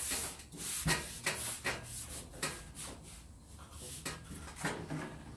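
Hands rubbing and pressing a plywood frame down onto a sheet of carpet felt: a run of irregular scuffing, brushing strokes, the strongest about a second in.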